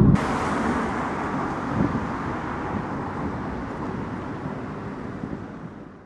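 Road traffic noise of cars driving by, a steady rushing hum that fades out gradually over the last couple of seconds.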